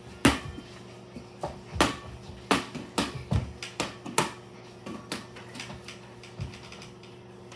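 Basketball bouncing: a run of about a dozen irregular sharp thumps over a faint steady hum.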